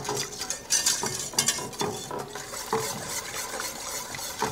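Wire whisk beating chicken broth into a roux in a stainless steel pot, scraping and tapping against the pan in quick, irregular strokes.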